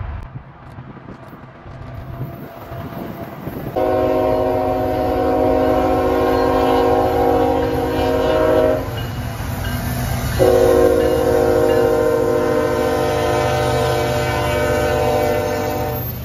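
Air horn of an approaching CSX freight train's lead locomotive, a GE ET44AH, sounding a chord in two long blasts, the first about five seconds, the second starting about a second and a half after it ends and running about six seconds. Under the horn, the low rumble of the diesel locomotives grows as the train draws near.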